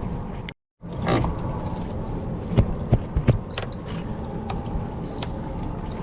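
Heavy spinning reel being cranked against a big fish, with mechanical clicking and creaking over steady background noise. The sound cuts out completely for a moment, just under a second in.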